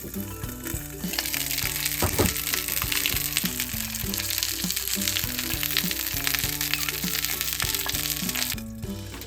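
Food sizzling in a hot frying pan, starting about a second in and cutting off near the end, over background music with a steady melody.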